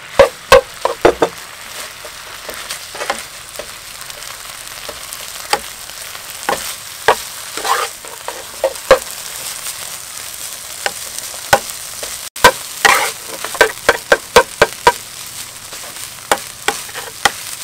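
Rice being stir-fried in sauce in a nonstick frying pan: a steady sizzle under irregular scrapes and clacks of a metal spoon against the pan.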